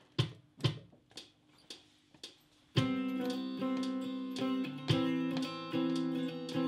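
Stratocaster-style electric guitar played through a small combo amp: a few single plucked notes, then from about three seconds in, strummed chords left ringing.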